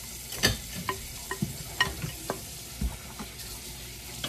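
Wooden spoon stirring and tossing a noodle and vegetable stir-fry in a stainless steel pan, with irregular knocks and scrapes against the pan about two to three times a second, over a light sizzle from the pan.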